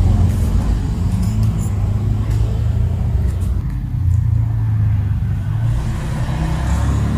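Steady low rumble, with a few faint light clicks now and then.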